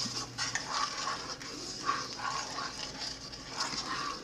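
Silicone spoon stirring and scraping chopped onions around a skillet of hot broth, in short irregular strokes over a steady sizzle from the pan.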